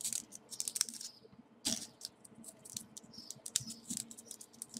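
Small folded paper 3D origami pieces crackling and clicking as fingers press them together into a base: irregular short rustles and clicks.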